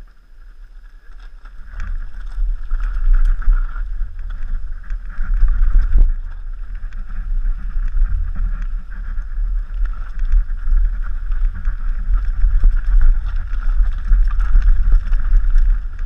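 Downhill mountain bike riding a rough forest trail: heavy wind rumble on the camera microphone, with tyre noise and the rattle and knocks of the bike over rocks and roots. It gets louder about two seconds in as speed picks up, with a sharp knock about six seconds in.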